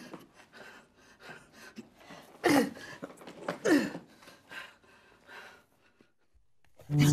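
A dancer's breathing and gasps, with two short vocal cries that fall in pitch, about two and a half and three and a half seconds in.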